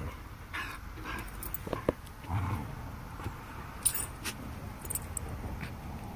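Wolfdogs play-wrestling at close range: a scatter of short scuffles and brief dog noises, with a few sharp clicks about four seconds in.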